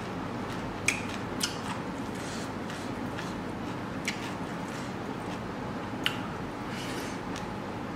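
Eating by hand: fingers mixing rice on a plate and chewing, with four short sharp clicks, the loudest about a second in, over a steady low background hum.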